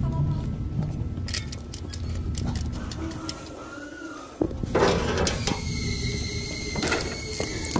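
Hand tool clicking and tapping against metal under the car as the oil pan is worked on. A short burst of noise follows about five seconds in, and background music comes back near the end.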